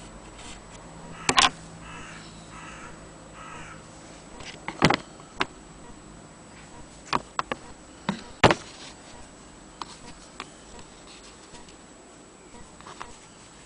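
Scattered sharp clicks and knocks, about six in all, with three short harsh calls about two to four seconds in.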